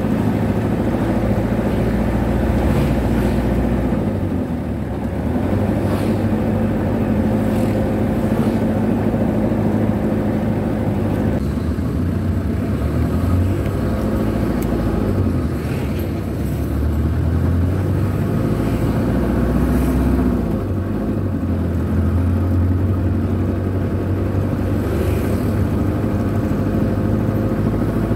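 Motor vehicle engine running while driving, with road and traffic noise. The engine pitch rises and falls several times as the speed changes. For much of the time it is heard from inside the vehicle's cab.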